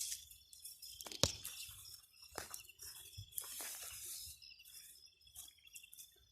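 Small knocks and rustles from handling a frog trap, with one sharp click about a second in, over a steady high-pitched drone.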